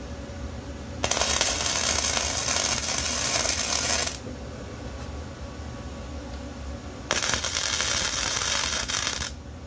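Wire-feed welder laying a bead: two runs of loud, steady arc crackle, one starting about a second in and lasting about three seconds, the other starting about seven seconds in and lasting about two. These are welds fixing a nut onto a footbrake bracket.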